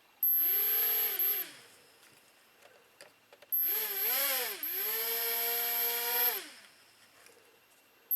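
Hubsan X4 H107L micro quadcopter's small motors whining as they are throttled up, twice: a short burst, then a longer one about three seconds later whose pitch dips and rises before holding steady. They spin up normally, a sign that the re-soldered battery wire is working.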